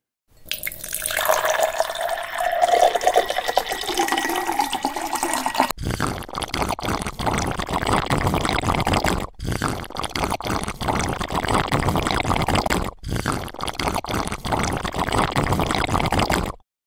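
Water poured into a glass, its pitch rising as the glass fills, followed by a steady noisy din that breaks off briefly several times.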